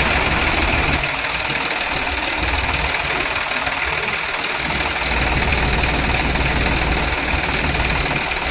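Small motor running steadily with a constant high whine.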